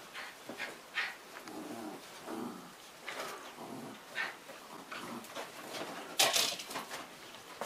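Two dogs play-fighting over a toy on a sofa: short, irregular dog noises mixed with the scuffling and rustling of bedding, and one louder sharp sound about six seconds in.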